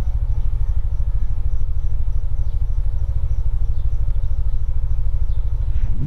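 Motor scooter engine idling, a steady, rapid low pulsing.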